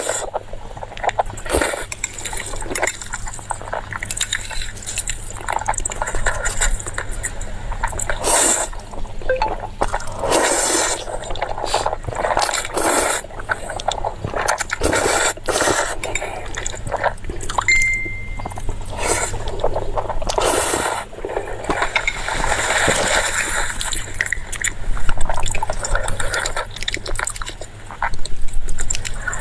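Close-miked wet chewing and mouth sounds of someone eating, with irregular crackly clicks and smacks.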